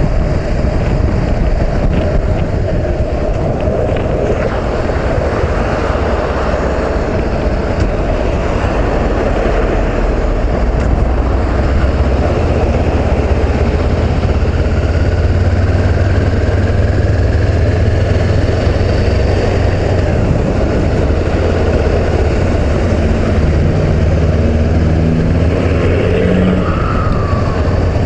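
Honda CB500X motorcycle at freeway speed: a steady rush of wind over the microphone mixed with the low drone of the parallel-twin engine and the tyres on the road. Late on, the low note shifts up and down a few times.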